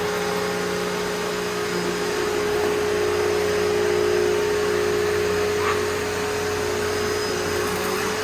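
Hoover Elite Rewind upright vacuum cleaner running steadily, a constant motor hum with a steady whine and the rush of air.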